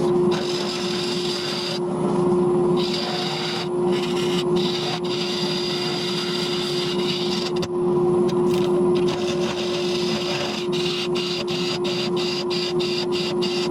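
Wood lathe running with a steady motor hum while a spinning wooden post is worked, a scraping hiss over it that breaks off in quick short gaps toward the end.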